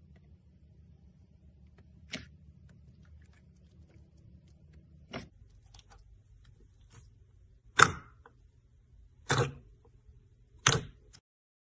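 Clear slime topped with coloured clay being pressed and folded by fingers in a jar, giving five short, sharp pops and squelches spaced a second or more apart; the loudest comes about eight seconds in. A faint low hum sits underneath.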